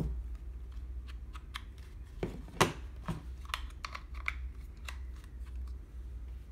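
Plastic clicks and clacks of a DJI Mavic drone battery being handled and its charger plug being worked out of and back into its socket, a quick run of sharp clicks with the loudest clack about two and a half seconds in.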